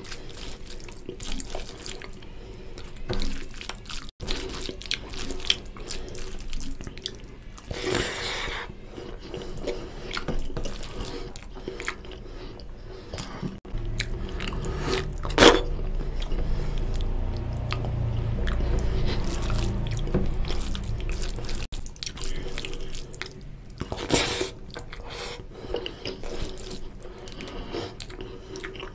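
Close-miked wet squelching of fingers mixing rice into oily mutton fat curry gravy and scooping it up, with small sticky clicks and some chewing. A low rumble runs through the middle, and there is one sharp click about fifteen seconds in.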